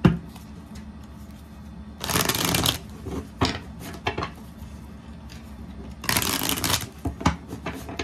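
Tarot deck being shuffled by hand: two quick bursts of cards rippling together, about two and six seconds in, with softer card clicks and taps between them. A single knock right at the start is the loudest sound.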